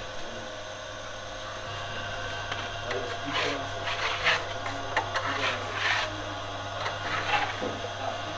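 Commercial dough mixer running with a steady motor hum as its arm kneads sangak dough in a large stainless steel bowl. From about three seconds in comes a run of short, irregular scraping sounds as a plastic scraper works dough against the bowl.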